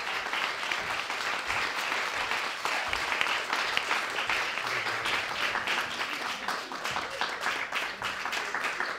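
A small audience applauding, dense steady clapping after a poem ends.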